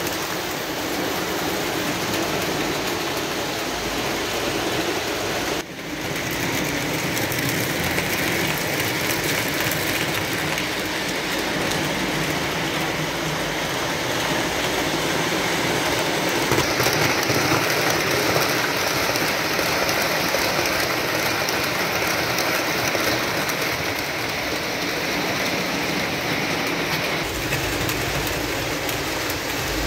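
Lionel O-gauge model trains running on three-rail track: a steady rolling rumble and hiss of wheels on steel rails. The sound dips briefly about six seconds in.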